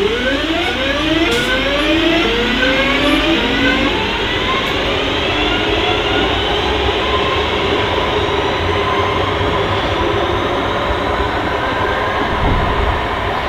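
Class 323 electric multiple unit pulling away from a standstill. Its traction motors whine in several tones that climb in pitch together over the first few seconds as it accelerates, over a steady rumble of wheels on rail.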